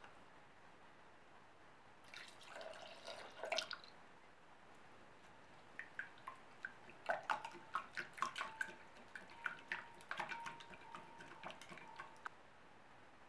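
Liquid poured into a ceramic mixing jug for about two seconds, then a wire balloon whisk beating eggs and oil, its wires clicking rapidly against the ceramic bowl, which rings with a light tone.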